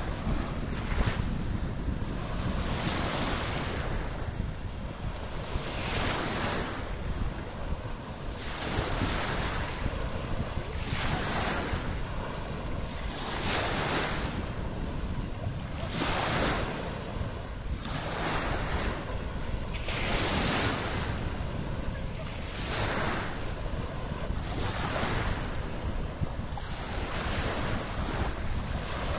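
Wind buffeting the microphone with a constant low rumble, over sea water rushing in regular surges about every two and a half seconds.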